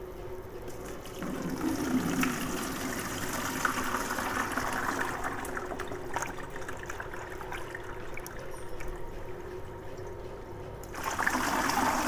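Liquid trickling, then about eleven seconds in a bucket of spent silver-reduction solution is poured through a plastic colander, splashing louder as the stream hits the mesh.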